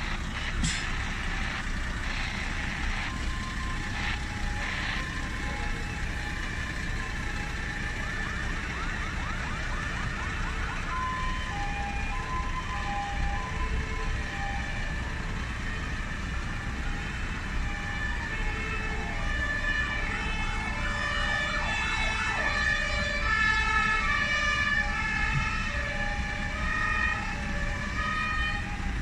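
Emergency-vehicle sirens over a steady background rumble: a wailing rise about eight seconds in, then several sirens overlapping, each stepping back and forth between high and low tones, a little louder near the middle of the second half.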